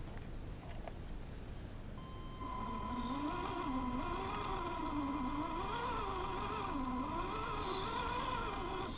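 Electric drive motor and gearbox of a Tamiya Toyota Tundra RC truck whining, picked up by a camera mounted on the truck. The whine starts about two seconds in and its pitch rises and falls with the throttle, over a steady higher whine.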